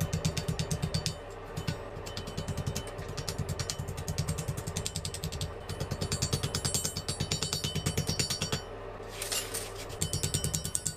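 Rapid, rhythmic scraping strokes, about seven or eight a second, as rust is scrubbed off a knife blade. The strokes break off briefly about a second in and again near the end.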